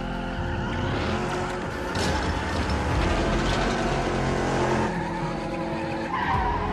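Muscle car engine running hard while its rear tyres screech and skid in a smoky burnout spin.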